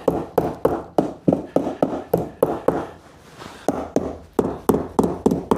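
Hammer tapping upholstery staples flush into a wooden chair frame with quick, light blows, about four a second, with a short pause about three seconds in. The staples are being knocked down so they won't make lumps under the upholstery.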